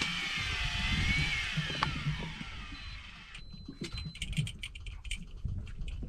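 Wind and boat noise with a low rumble, and a thin whine that slides down in pitch over the first two seconds. After that it turns quieter, with faint, irregular clicks.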